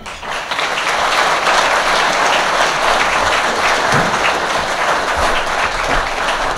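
Audience applauding: a large crowd's dense, steady clapping that swells over the first second.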